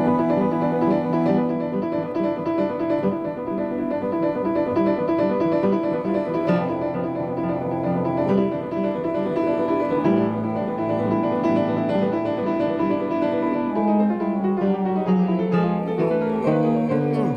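Live instrumental music: the opening of a fast modern toccata, full of rapid repeated notes.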